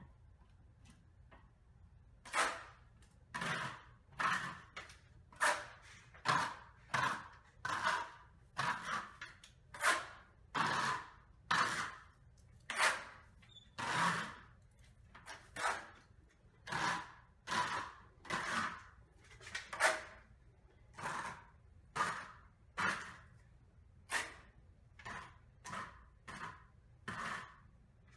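A wide steel drywall taping knife swiped again and again across wet joint compound on the ceiling, knocking down and blending skip trowel texture. Short scraping swishes come about one a second, starting about two seconds in.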